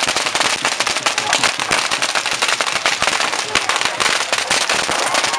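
Firecrackers bursting in a rapid, unbroken stream of sharp cracks, many a second.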